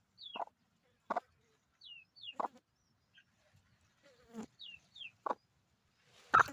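Chicken giving short, sharp clucks about every second, six in all, the loudest near the end, with brief high falling chirps between them.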